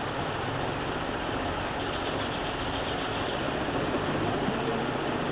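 Steady rushing background noise, even throughout, with no distinct knocks or tones.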